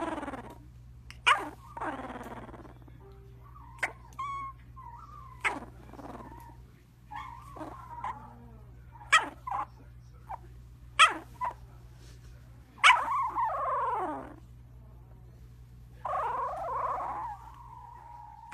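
A sleeping puppy whimpering and yipping in its sleep: short sharp yips scattered through, between longer bending whines, with a falling whine about thirteen seconds in and a long whine near the end.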